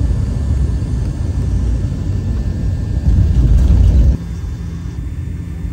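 Low, loud rumble of a moving vehicle heard from inside its cabin. It drops abruptly to a quieter, steadier hum about four seconds in.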